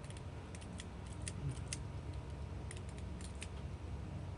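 Small, irregular metallic clicks and ticks of hand tools and metal parts being worked on a disassembled pin-tumbler lock cylinder, over a low steady hum.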